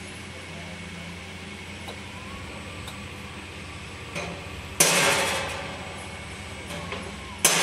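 JZJ15 chocolate tempering machine's motor running with a steady low hum while its speed is adjusted. Two loud knocks land about two and a half seconds apart, each ringing out for about a second.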